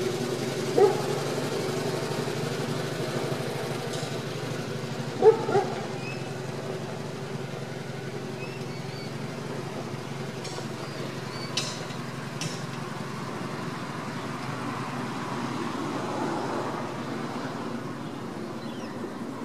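1965 Bedford J5L tip truck's six-cylinder engine running as the truck drives away, its steady hum slowly fading. The owner thinks the engine is missing on one cylinder. Two short, louder sounds come about one second and five seconds in.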